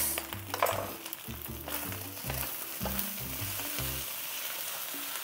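Fried rice sizzling in a non-stick wok as it is stir-fried, with a few light spatula clicks in the first two seconds. Background music with a bass line plays underneath.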